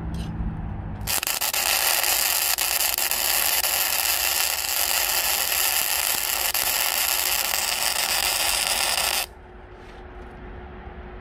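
Electric arc welding on steel: a steady frying hiss of the arc that strikes about a second in and cuts off sharply about eight seconds later, as a weld bead is laid.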